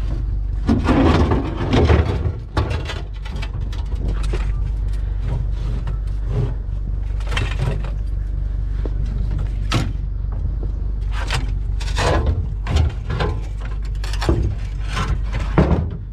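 Scrap metal and wooden furniture being shifted around in a pickup truck bed: repeated knocks, clanks and rattles, busiest about a second in, over a steady low rumble.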